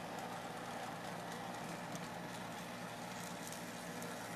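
Model Shay locomotive running along the track: a steady, quiet motor hum with faint clicks of the wheels over the rails, running probably too fast for a Shay.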